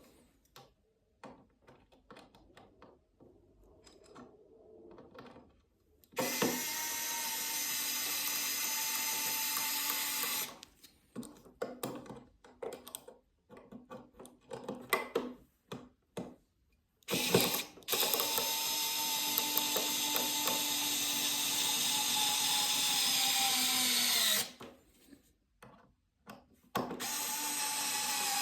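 Power drill running in three bursts of several seconds at a steady pitch, winding down each time it stops, with clicks and handling knocks in between.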